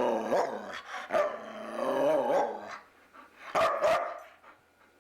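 A dog vocalizing in drawn-out, wavering, howl-like sounds for the first two and a half seconds or so, then a short, loud call a little past three and a half seconds in.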